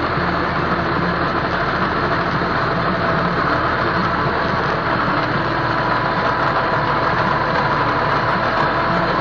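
Massey Ferguson tractor's diesel engine running steadily under load while working the soil, heard close up from the driver's seat.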